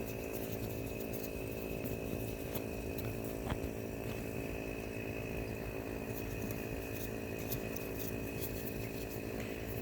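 A steady motor hum with a constant high whine over it, unchanging throughout, with a single faint click about three and a half seconds in.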